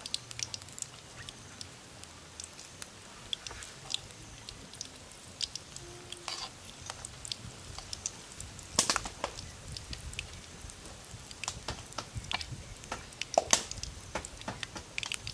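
Small battered fish deep-frying in oil in a metal wok, the oil crackling and popping irregularly. A metal spoon turning the fish gives a few sharper clicks against the wok, loudest about nine seconds in and again near the end.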